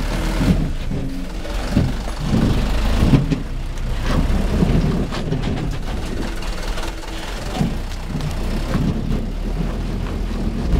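Truck engine running steadily, with an uneven low rumble.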